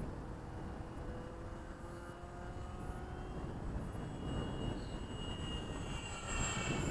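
Electric motor and propeller of a foam-board RC model airplane whining in flight, growing louder and dropping in pitch as it makes a low pass, loudest about six and a half seconds in. Wind noise in the background.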